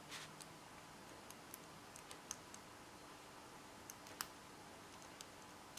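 Faint, irregular small clicks from the number wheels of a four-digit combination padlock being turned by hand, about a dozen, spread unevenly, over a faint steady hum.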